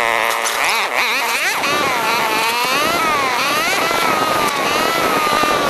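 ATV engines revving on the move, in sped-up footage, so they sound as a high whine that swoops up and down in pitch.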